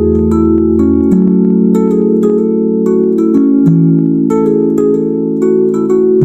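Background music: held low chords that change twice, under a melody of short notes and a light ticking beat.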